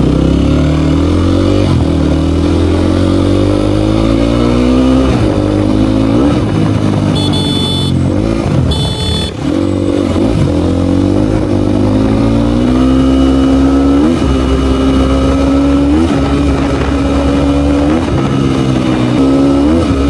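Motorcycle engine running under way, its pitch climbing and then dropping back sharply again and again as the rider shifts up through the gears and rolls the throttle on and off.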